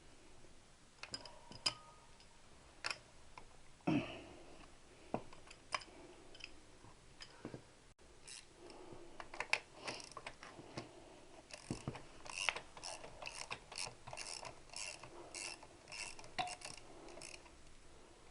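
Socket ratchet wrench being worked to spin a nut off, its pawl clicking in quick runs through the second half, with scattered metallic clicks and knocks before that.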